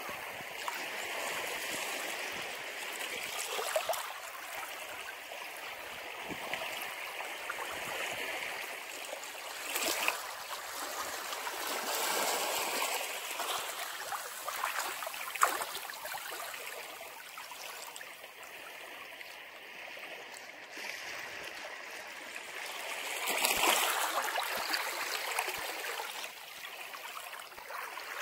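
Ocean waves washing ashore in a steady rush of surf that swells and ebbs in surges. The largest surge comes about two-thirds of the way through.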